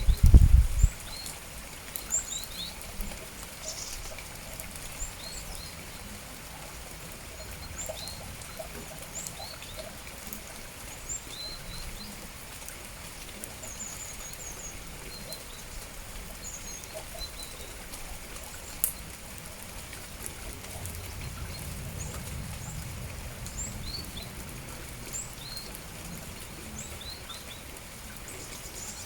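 Small songbirds giving many short, high chirps over the steady hiss of falling rain. A loud low rumble fills the first second, and a weaker one comes back about three-quarters of the way through.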